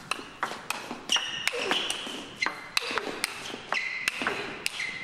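Table tennis rally: the ball clicks sharply off rackets and table several times a second. Over it come high, drawn-out squeaks of players' shoes on the court floor.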